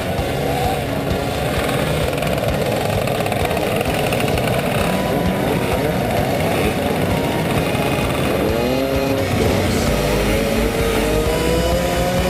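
A pack of small scooter engines running together at idle. About eight seconds in, one engine revs in a short rising whine, then another longer, slowly rising rev follows.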